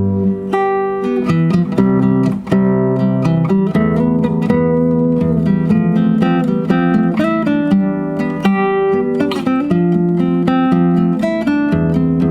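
Acoustic guitar played fingerstyle: a plucked melody with bass notes underneath, many quick notes in a steady flow.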